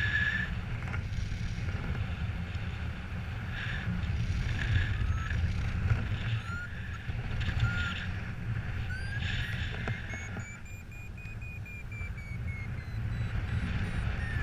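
Paragliding variometer beeping: short chirps that glide upward in pitch, then about ten seconds in a longer tone that rises and falls, the vario's signal of climbing in lift. Under it, a steady low rumble of wind on the microphone.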